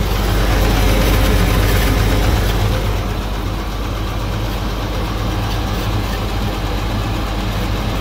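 GM 4.3 Vortec V6 in a Hyster forklift, running on propane and idling steadily just after its first start, with a light knock; the engine had seized after running out of oil. It runs a little faster for the first couple of seconds, then settles.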